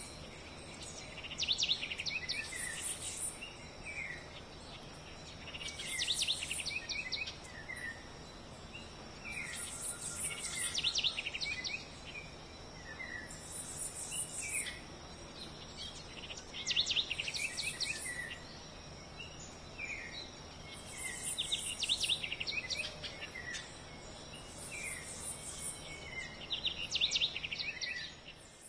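Forest ambience: a bird repeats the same short call phrase about every five seconds, each phrase a few rising notes and a quick run of high strokes, over a steady high insect drone.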